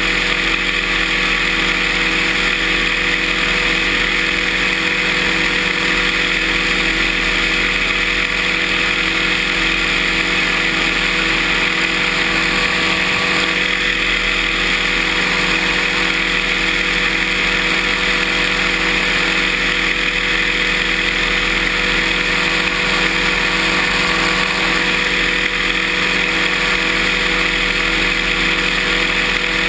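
Paramotor engine and propeller running loud and steady, the pitch holding constant throughout.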